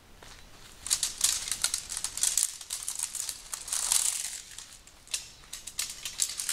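Folded tent poles being handled and unfolded, pole sections clicking and clattering together amid crisp rustling, starting about a second in.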